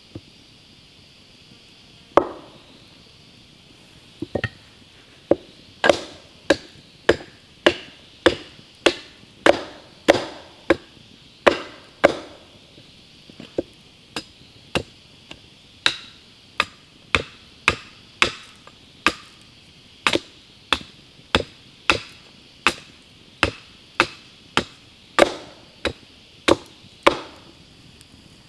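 Wooden baton striking the top of an upright log to split it: a few scattered blows, then from about five seconds in a steady run of sharp knocks, about one and a half a second.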